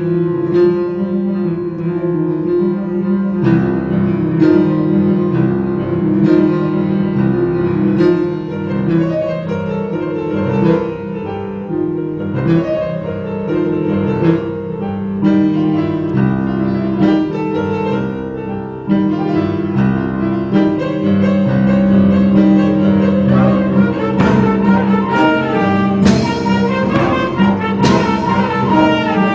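Instrumental music with several instruments playing a melody over sustained low notes, fuller and louder in the last few seconds.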